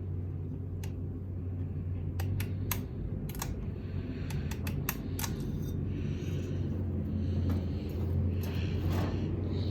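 Harbor Breeze Lakeside II ceiling fan being set to low speed: a run of irregular light clicks from its switch over a steady low hum, with softer swishes in the second half.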